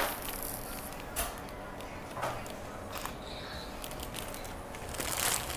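Shop room tone: a steady low hum with a few scattered light clicks and knocks, and rustling handling noise rising near the end.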